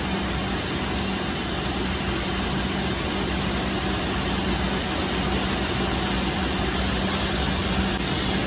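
Steady drone of an airplane electronics bay's running equipment and ventilation: an even rush of air with a constant low hum.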